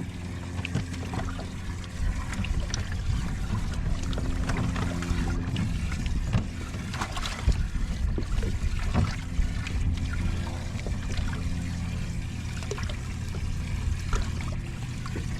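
A motor aboard a bass boat hums steadily, with scattered small knocks and some water trickling.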